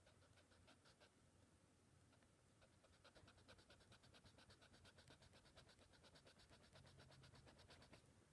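Faint, quick back-and-forth rubbing of a kneaded eraser on sketchbook paper over charcoal lines, about eight strokes a second, growing steadier about three seconds in and stopping near the end.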